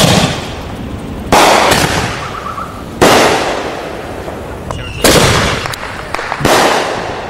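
Fireworks going off: five loud bangs about a second and a half apart, each trailing away in echo.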